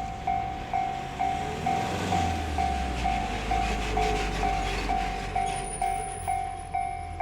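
Japanese level-crossing alarm bell ringing in an even electronic ding about twice a second, while a train passes the crossing with a low rumble and rail noise that swell about two seconds in and ease off near five seconds.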